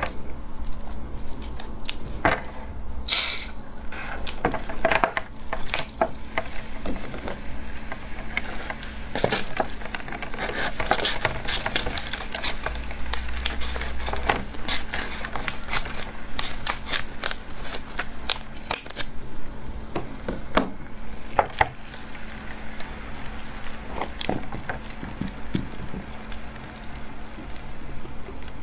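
A plastic cola bottle of half-frozen cola slush fizzing and crackling as its cap is twisted off. Then the plastic is snipped open with scissors and crinkled off the slush ice, making a long run of sharp clicks, snips and crackles.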